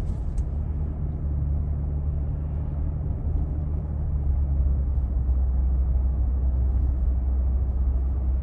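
Steady low road and drivetrain rumble inside the cab of a moving 2022 Toyota Tundra, with a few faint clicks right at the start.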